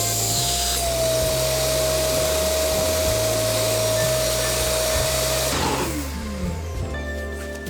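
Bosch GAS series shop vacuum running steadily with a motor whine, drawing air through a cyclone pre-separator. About three-quarters of the way through it is switched off and the whine falls in pitch as the motor winds down. Background music comes up near the end.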